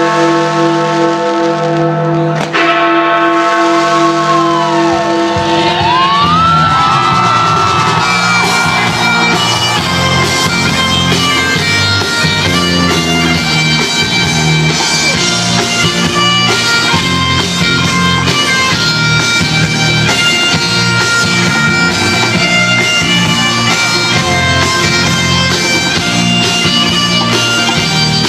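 Loud music playing: held, pulsing tones for the first five seconds or so, then, from about six seconds in, a full arrangement with a steady beat.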